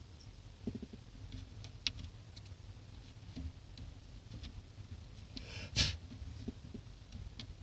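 Light handling noises: scattered small clicks and taps, with a brief louder rustle or scrape about six seconds in.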